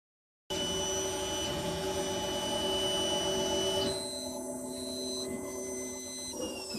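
CoreXY 3D printer printing, its stepper motors whining in several steady tones that jump to new pitches as the head changes moves, with tones gliding up and down near the end as it speeds up and slows down. The sound starts about half a second in.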